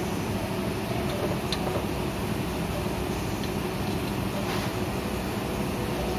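Steady mechanical hum of workshop machinery, with a couple of faint metallic clicks from a hand tool being worked on the underside of the car.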